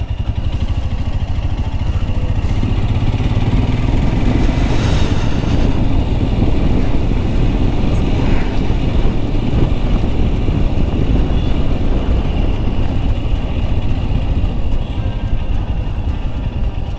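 Motorcycle engine running steadily under way, a dense low pulsing drone that gets a little louder about a second in.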